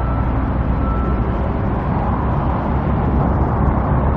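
Steady low rumble of motor traffic, with a constant engine hum underneath and no single event standing out.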